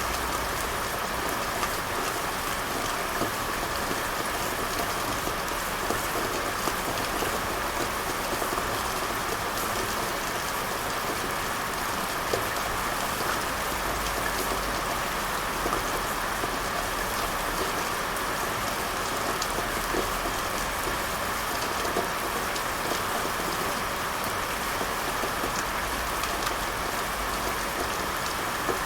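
Heavy rain falling steadily: a dense, even hiss with many sharper individual drop ticks scattered through it.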